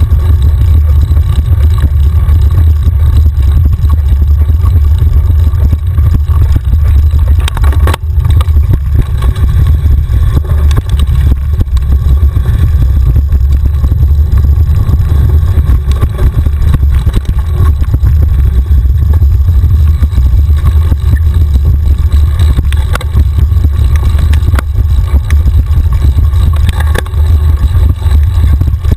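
Wind buffeting and trail rumble on a bike-mounted action camera as a mountain bike descends a dirt singletrack: a loud, steady low roar, with scattered clicks and rattles from the bike over bumps.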